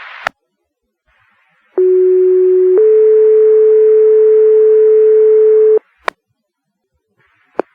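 Two-tone sequential fire pager tone-out over a scanner radio, the alert that sets off firefighters' pagers before a dispatch. A lower tone lasts about a second, then steps up to a slightly higher tone held for about three seconds, with radio hiss around it. Short squelch clicks follow as the transmission ends.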